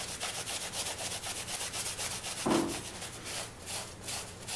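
A paper towel wet with mineral spirits is scrubbed in quick back-and-forth strokes over a lacquer-sealed plywood stencil, rubbing off spray paint. A brief low hum is heard about halfway through.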